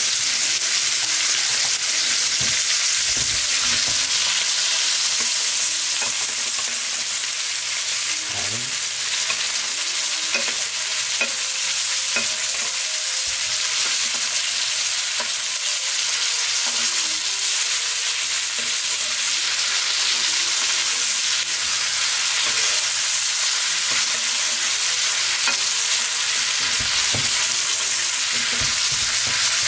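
New York strip steak sizzling steadily in foaming butter and oil in a nonstick frying pan, with a spoon scraping and scooping in the pan now and then as the butter is basted over the meat.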